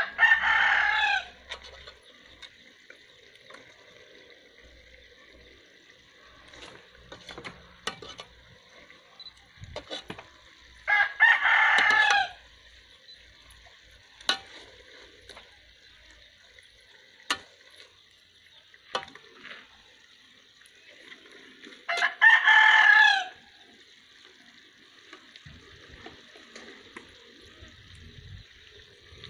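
A rooster crowing three times, about ten seconds apart, each crow a little over a second long.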